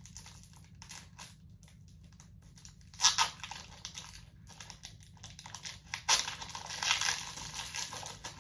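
Foil wrapper of a Pokémon card booster pack crinkling and tearing open in the hands, an irregular rustle with the loudest crackles about three seconds in and again around six to seven seconds.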